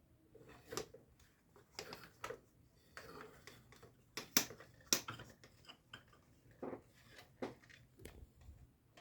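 Scattered light clicks and knocks of hard plastic being handled, about a dozen over several seconds at an uneven pace.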